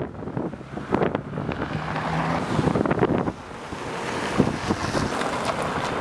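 Wind buffeting the microphone over street traffic, a car's engine hum and tyres on a rough, gravelly road. The sound drops and changes abruptly a little over three seconds in.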